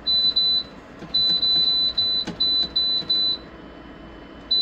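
Oven's electronic alarm beeping: a high, thin tone in short, evenly spaced beeps, about three a second, in runs with short pauses. A single knock about two seconds in.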